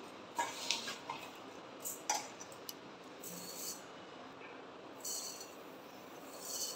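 A steel tumbler scooping dry rice from a steel bowl, with a few light clinks and scrapes of metal on metal. Near the end there is a soft hiss of dry rice grains pouring into a steel pot.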